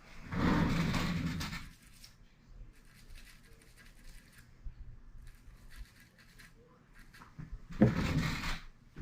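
Rust being scrubbed off a shotgun's bolt carrier group: a long stretch of rubbing just after the start and another near the end, with faint scratching between.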